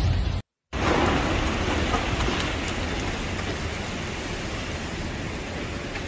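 Heavy storm rain hissing steadily, cut off by a brief dropout about half a second in, then easing slowly.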